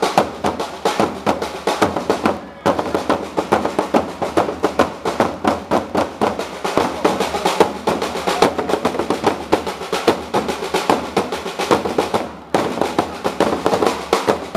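Parade drums accompanying a flag-throwing display, beating fast, dense strokes and rolls. The drumming dips briefly and picks up again about two and a half seconds in and near the end.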